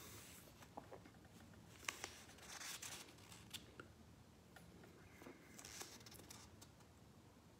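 Near silence with faint handling noise from reading material: a light click about two seconds in, a few more soft clicks, and two short spells of faint rustling.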